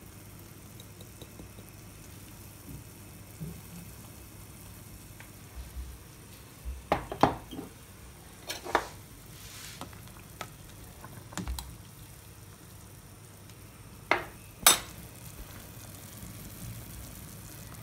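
Utensil taps and knocks against a pot of simmering fish soup as turmeric is added and stirred in: a scattering of sharp taps, the loudest near the end, over a faint steady hiss from the pot.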